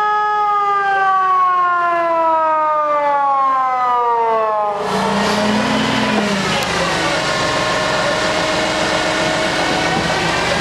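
Wandel & Goltermann electronic siren sounding the fire-alarm signal: a steady wailing tone that falls in pitch as it winds down, then stops abruptly about five seconds in. A steady rushing noise with faint tones follows.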